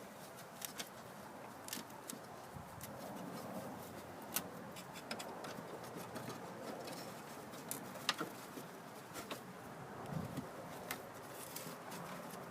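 Razor blade cutting and picking packed Spanish moss off a lawn mower's drive axle: faint scraping with scattered small clicks and ticks, irregularly spaced.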